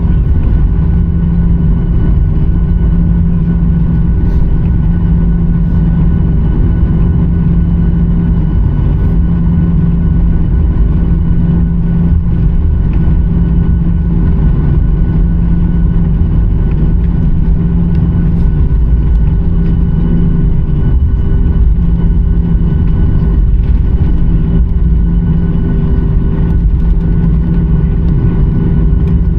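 Steady, loud cabin noise inside a Boeing 737-900ER: a deep rumble with several constant humming tones over it.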